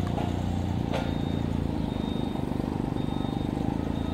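Steady low outdoor rumble, with a single sharp click about a second in.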